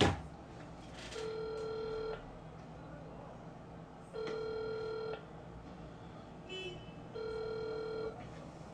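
Phone ringback tone over a phone's speaker: a steady tone about a second long, then two seconds of quiet, three times while the call waits to be answered. A sharp knock right at the start is the loudest sound.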